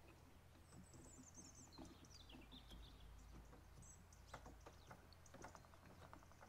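Near silence, with a faint bird twittering a phrase that falls in pitch in the first half. A few faint small clicks follow in the second half as the valve collets are worked free on the compressed valve spring.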